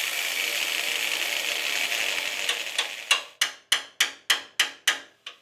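Angle grinder cutting into a rusty steel chassis rail, a steady grinding that stops about three seconds in. A quick run of ringing metal-on-metal strikes follows, about four a second, as a hammer and chisel cut away the rotten steel.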